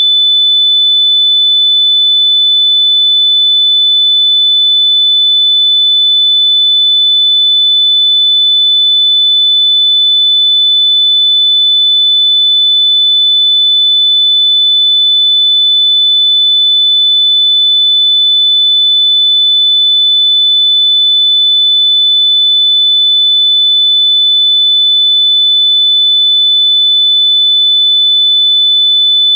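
A single loud, high-pitched electronic test tone, a pure sine tone held perfectly steady without any change in pitch or level.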